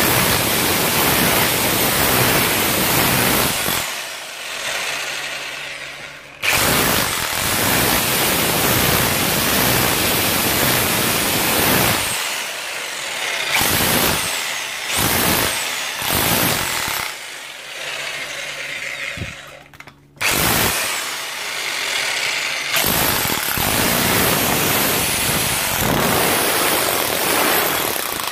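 Parkside PBH 1500 F6 SDS-Plus hammer drill in chisel mode, its pneumatic hammer mechanism pounding a chisel bit into a masonry wall. It runs loud in long stretches, stopping briefly several times.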